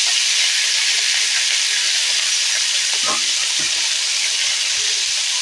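Freshly washed, chopped red amaranth leaves sizzling steadily in a little hot oil in a kadai, the water on the leaves hissing off as they fry.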